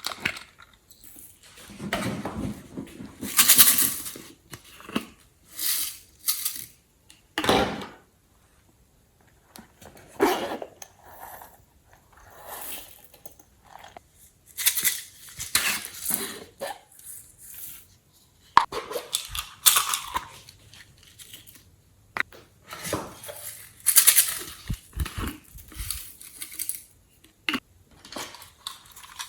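Glossy slime being worked and mixed: irregular sticky squishes and crackles in short bursts, with brief pauses between them.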